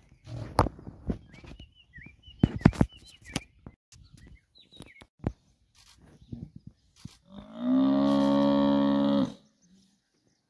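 A Cape buffalo bull bellows once, a long, steady, loud call of nearly two seconds, a distress bellow as lions bring it down. Before the bellow there are scattered knocks and a few faint high chirps.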